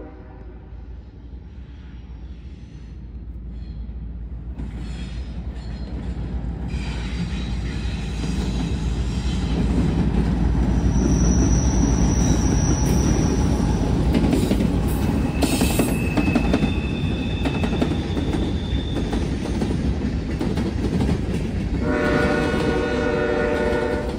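Norfolk Southern freight train passing close by: a heavy rumble building over the first ten seconds and staying loud, with brief thin wheel squeals around the middle. A multi-note train horn sounds for about two seconds near the end.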